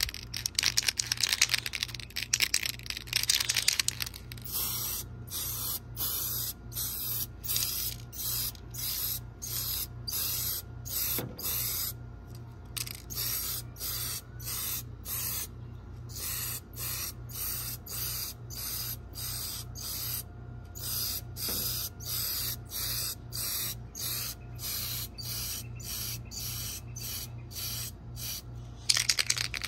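Aerosol spray-paint can spraying copper-orange paint into a clear plastic RC truck body. A long hiss for the first four seconds, then short bursts about twice a second, then another long hiss near the end.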